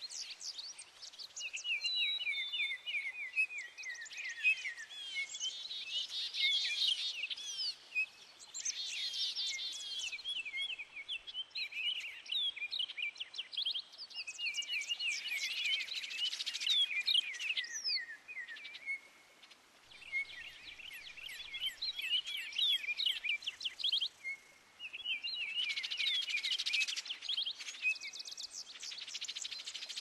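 Songbird song in the background: rapid, high twittering phrases a second or a few seconds long, repeated again and again with short pauses between them.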